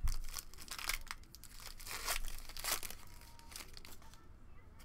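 Crinkling and tearing of a trading card pack's wrapper as it is handled and opened, strongest in the first three seconds and thinning out after.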